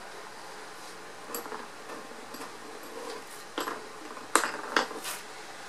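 Metal hand tools and screws clinking and knocking on a workbench as they are picked up: a handful of sharp, separate clicks, the loudest about four and a half seconds in.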